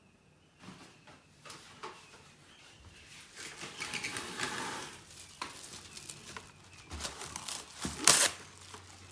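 Plastic cling wrap rustling and crinkling as it is pulled off the roll and torn, then stretched and pressed down over a stainless steel mixing bowl. A loud sharp crackle comes about eight seconds in.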